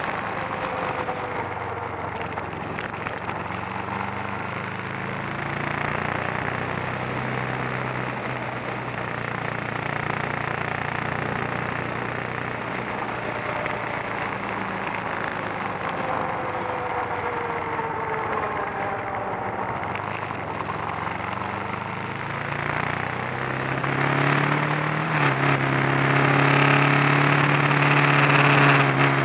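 Kawasaki 454 LTD's liquid-cooled parallel-twin engine running as the motorcycle rides along, with wind noise on the microphone. Near the end the engine gets louder and its pitch steps up as the bike accelerates.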